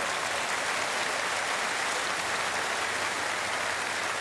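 Large theatre audience applauding steadily in response to a punchline.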